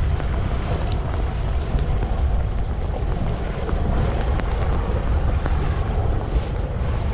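Wind buffeting the microphone in a steady low rumble, with the engine of the towing motorboat running underneath.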